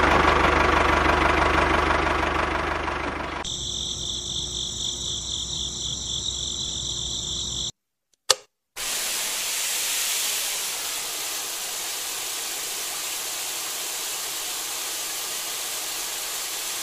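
A model tractor's motor running with a steady engine-like drone for about three seconds, then a higher whirring of a small motor for about four seconds. After a short break with a single click, a fine water spray from a small brass nozzle hisses steadily onto the tractor.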